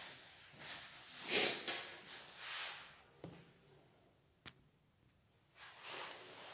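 A person moving about in a small room: a few short rustling swishes, the loudest about a second and a half in, and a couple of faint clicks.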